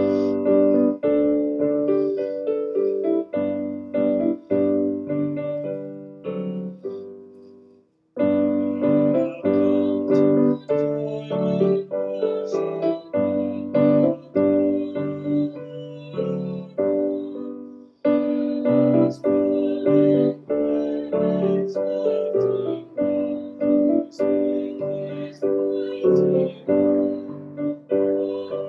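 Piano playing a hymn tune in full chords, each note struck and then dying away. The music stops briefly twice, at phrase ends, about a third of the way through and again a little past the middle.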